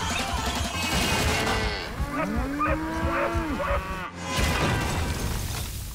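A crowd of cartoon pigs squealing and crying out all together, many overlapping calls that rise and fall, thickest in the middle, over a steady low rumble.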